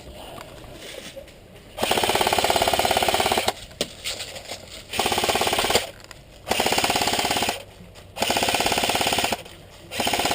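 Airsoft rifle firing on full auto in five bursts of about a second or a second and a half each, a fast even rattle of shots with short pauses between bursts.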